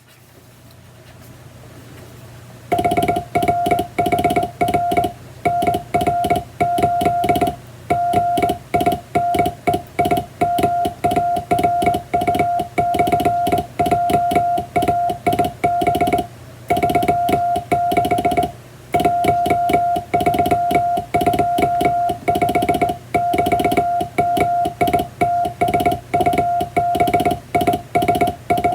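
Morse code sent by hand on a straight telegraph key: a steady sidetone of about 700 Hz keyed into dots and dashes, with the clicks of the key at each make and break. It starts about three seconds in, over a faint low hum.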